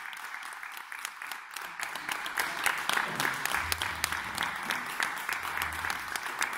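Audience applauding: a dense patter of many hands clapping that swells about two seconds in.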